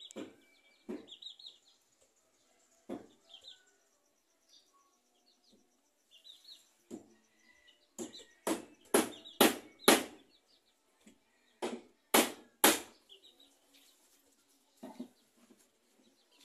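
Hammer blows on wood in short runs of about two a second, loudest in a run of five about halfway through. Birds chirp faintly between the blows.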